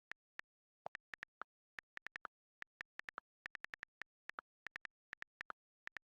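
Rapid keypress clicks of fast typing: short, sharp ticks at an uneven pace, about five or six a second, with brief gaps between words.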